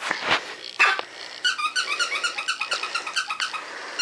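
Five-week-old husky puppy whining in a quick run of short, high squeaks, about five or six a second, starting about one and a half seconds in.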